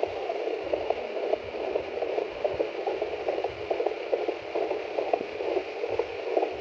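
Handheld ultrasound fetal Doppler playing its probe signal through its speaker: a steady rushing hiss with irregular crackles. It cuts off suddenly at the very end.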